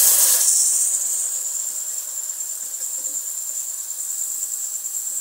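Onion and spice masala sizzling in hot oil in a steel pan: loud at first, settling within about a second to a steady, softer sizzle.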